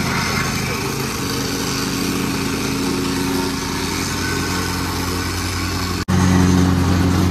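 Petrol-engined vibrating plate compactor running steadily as it is worked over a gravel base. About six seconds in there is a sudden break, after which the engine sounds louder.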